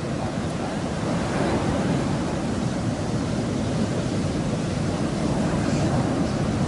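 Steady rumble of ocean surf breaking on a sandy beach, an even wash of noise with no breaks.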